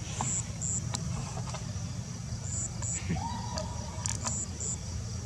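Outdoor ambience: a steady low rumble under a high, pulsing insect buzz, with a few light clicks. About three seconds in, a single whistle-like call rises and then holds level for about a second.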